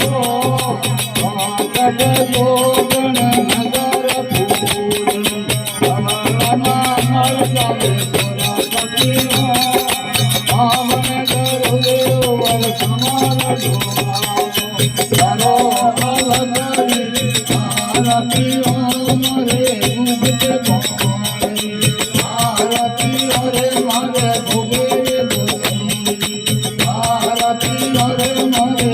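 Devotional aarti song in folk style: a voice sings a wavering melody over fast, steady rhythmic percussion with a bright jingling rattle.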